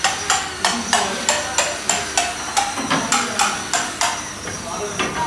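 Hammer blows on metal in a steady rhythm, about three ringing strikes a second, stopping about four seconds in.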